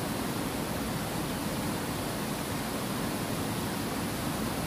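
Water spilling over a low concrete weir into a channel, a steady rushing with no breaks.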